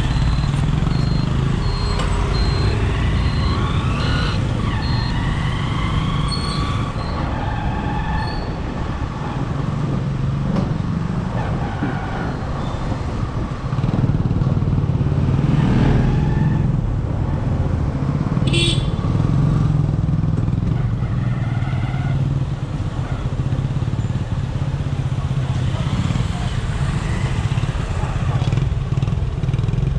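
Motorcycle engine running steadily on the move through road traffic. A run of short high beeps sounds for the first few seconds.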